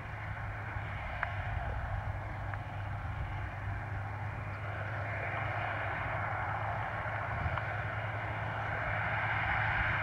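A John Deere S690 combine and a John Deere 9460RT track tractor running in the field, a steady low engine hum under a broad mechanical drone. The drone grows louder over the last few seconds as the tractor and grain cart come toward the listener.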